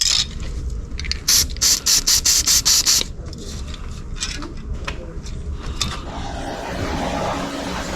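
Hand socket ratchet clicking in a quick run of about eight strokes, about five a second, then scattered lighter clicks and tool rubbing.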